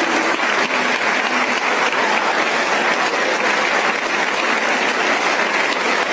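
Large audience applauding steadily after an orchestral performance ends.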